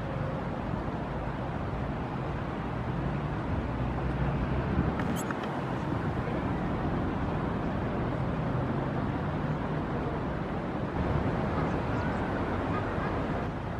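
Steady outdoor background rumble with a faint low hum, and a single sharp click about five seconds in.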